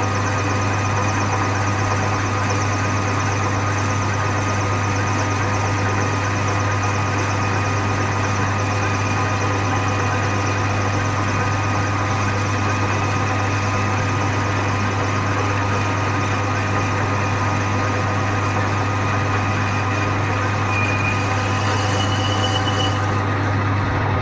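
Manual metal lathe running steadily at 453 rpm with a constant hum and whine from its motor and gear drive, while a high-speed-steel tool takes a hand-fed finishing cut on aluminium round bar. A faint higher whine comes in near the end.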